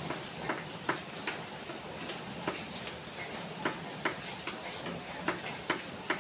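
Rain falling: a steady hiss with sharp drips ticking irregularly over it, about one or two a second.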